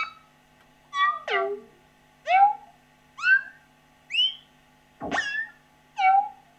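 Behringer MonoPoly analogue synthesizer playing about eight short single notes, roughly a second apart. Each note swoops in pitch, most falling and one rising, which gives a meow-like sound.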